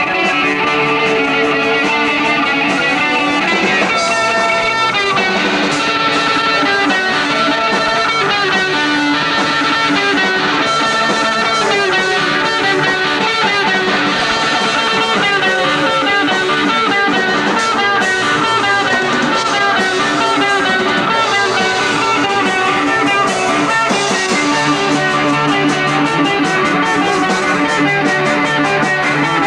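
A rock band playing live, with electric guitar to the fore and a keyboard in the mix. The sound is steady and thin in the bass.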